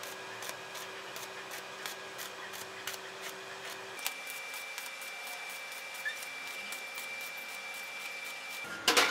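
Stick (arc) welding on square steel tubing: a steady hiss with rapid ticks from the electrode's arc, changing abruptly about four seconds in. A few loud knocks near the end.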